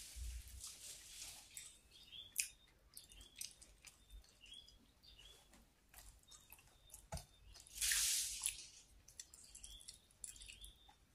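Close-up eating sounds of batagor in peanut sauce: wet chewing and lip-smacking clicks, a few knocks of a spoon on the plate, and a short loud hiss about eight seconds in.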